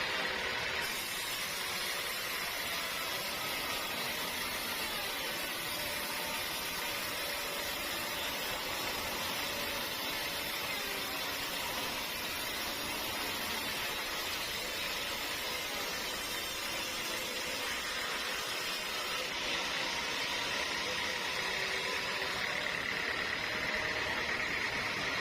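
Sawmill machinery running steadily, a continuous mechanical noise with a hissing band in the upper middle.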